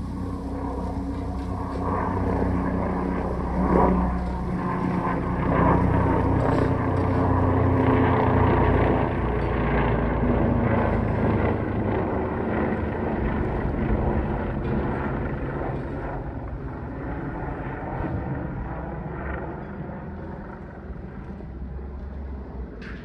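Helicopter flying overhead, its rotor and engine drone growing louder to a peak partway through and then fading as it moves away, the pitch slowly falling.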